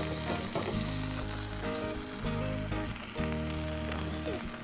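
Ground beef patty sizzling on the hot steel top of a Blackstone propane griddle, held flat under a burger press.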